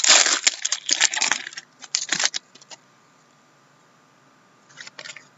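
Handling noise from trading cards and their packaging: a dense burst of crinkling and clicking for about two and a half seconds, then a few light clicks near the end.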